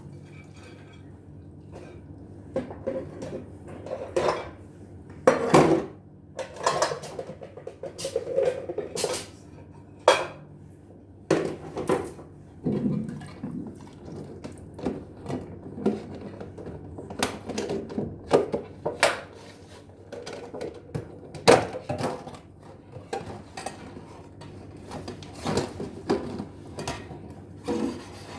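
Dishes and cutlery clinking and knocking together as they are handled and washed, in irregular strikes of varying loudness.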